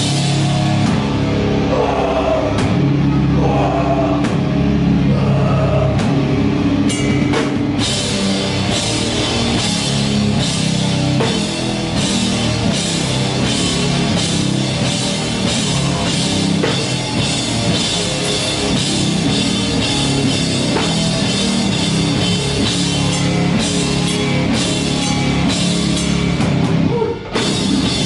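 A live rock band plays loud and without pause: drum kit, electric guitars and bass guitar. There is a brief break near the end.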